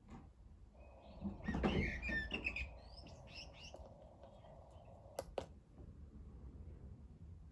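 A bird alarm clock's small speaker playing chirping birdsong for a few seconds, starting about a second and a half in, over a faint steady hiss, as the light-sensitive alarm goes off. Two sharp clicks follow about five seconds in.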